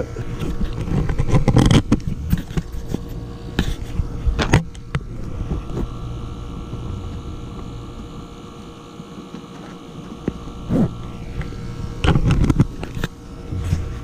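Knocks, scrapes and rustles from tools and gear being handled and moved about, the loudest a cluster of thumps near the end. Under them runs the steady hum of a running ClimateMaster geothermal heat pump.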